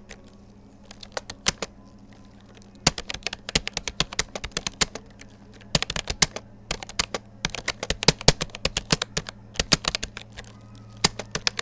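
Keystrokes on a Rapoo computer keyboard during a timed typing test: rapid runs of clicks that pause briefly between bursts.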